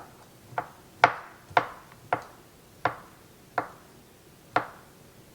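Knife chopping sliced provolone cheese on a cutting board: about eight separate sharp knocks, roughly one every half second, spacing out a little toward the end.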